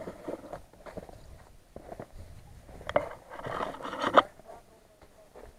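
Rustling and scraping close to the microphone, from camera handling and clothing as the camera is brought down low beside the vehicle. It is irregular, with small clicks and crunches, grows loudest about three to four seconds in, and ends that stretch with a sharp click.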